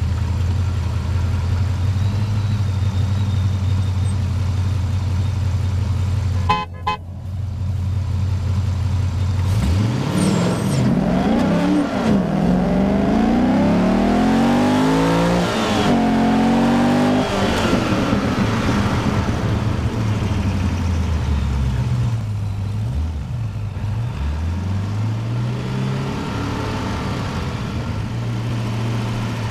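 Corvette Z06's 7.0-litre LS7 V8 with aftermarket headers and exhaust, idling at the line, then launched hard about ten seconds in. The revs climb in uneven surges as the rear wheels spin on the wet road, pull through one gear change to about 100 km/h, then drop away with several rises and falls before settling back to idle.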